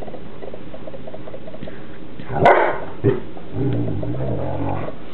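Newfoundland dogs play-wrestling: a loud bark about two and a half seconds in, a short second bark, then a long, low growl.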